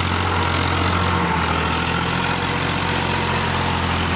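Powertrac Euro 50 tractor's three-cylinder diesel engine running steadily.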